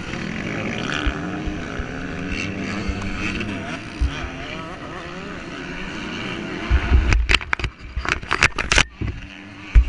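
Motocross bikes running on the track, their engine pitch rising and falling as they rev. Near the end, loud rubbing and knocking on the helmet-mounted microphone as the fallen dirt bike is handled.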